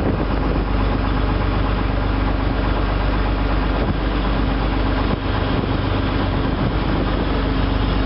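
Engine of the riverboat MV Wairua running steadily under way, a constant low hum heard on board.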